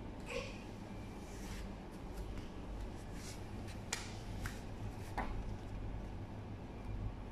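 Indoor room tone: a steady low hum under a faint hiss, with a few light clicks and taps about four to five seconds in.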